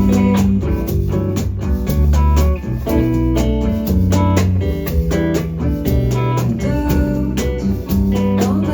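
Band playing an instrumental passage of an acoustic-version song, with no singing: plucked guitar over sustained bass notes and regular drum hits.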